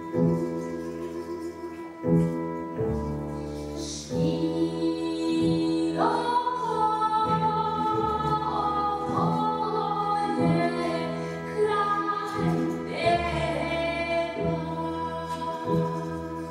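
Live folk-style band playing: a woman singing with violin, a wind instrument and double bass over a steady beat. The sliding sung melody comes in about six seconds in.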